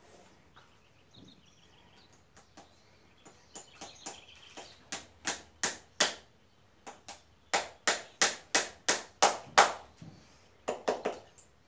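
Farrier's hammer driving horseshoe nails into a horse's hoof: sharp ringing taps, light at first, then heavier blows about three a second in several runs with short pauses between them.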